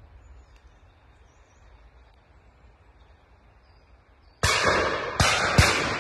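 Three gunshots in quick succession about four and a half seconds in, the last the loudest, their echo dying away slowly. Before them only a low rumble of wind on the microphone.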